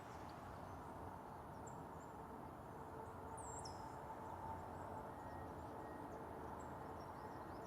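Outdoor natural ambience: a steady low background noise with a faint hum, and a few faint high, falling bird chirps about three to four seconds in.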